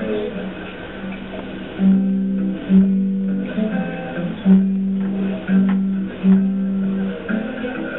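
Guitar music: a slow line of plucked notes, each ringing for up to about a second.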